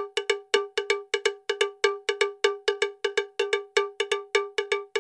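A single-pitched metallic percussion note struck rapidly over and over, about five or six strikes a second in an uneven, pattering rhythm: a bell-like outro sound laid over the end of the video.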